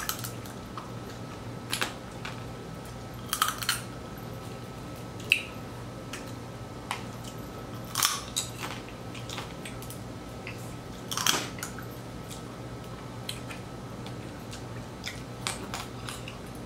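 Boiled blue crab shells being cracked and pulled apart by hand: irregular sharp cracks and clicks, a second or several apart, over a steady low hum.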